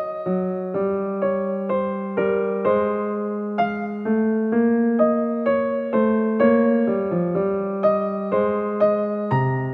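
Background electric piano music: a gentle melody of evenly spaced notes, about two a second.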